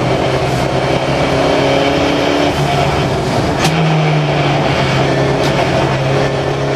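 Turbocharged Volvo 360 race car's engine running hard under load, heard from inside the stripped cabin. Its pitch steps up twice, and there is a single sharp crack near the middle.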